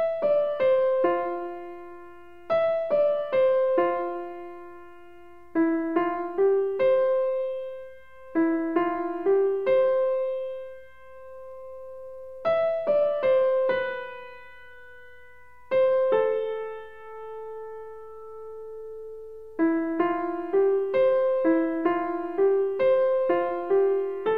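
Background music: a gentle solo piano or electric-piano melody played in short phrases of struck notes that ring out, with brief pauses between phrases.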